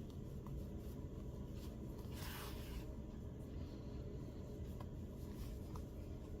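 Soft rubbing and rustling of yarn being pulled through crocheted stitches as an arm is sewn on, with one louder rustle about two seconds in, over a steady low hum.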